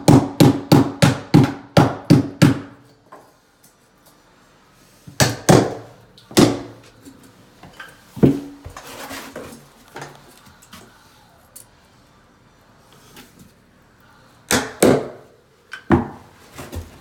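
Hammer blows nailing carpet tack strip to an OSB subfloor: a quick run of about ten blows at roughly four a second, then a few single blows spaced apart, and three more near the end.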